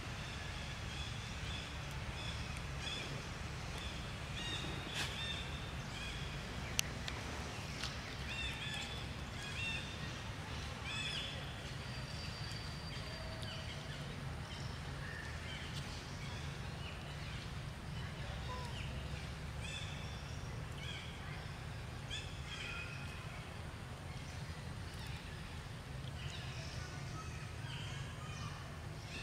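Forest ambience: small birds give scattered short, high chirps and calls over a steady low rumble. A single sharp click comes about seven seconds in.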